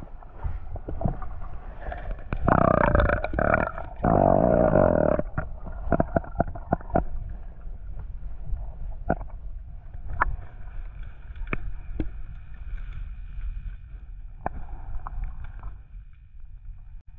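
Underwater sound picked up by a submerged camera: a steady low water rumble, with two loud gurgling bursts of bubbles in the first five seconds, then a handful of sharp clicks.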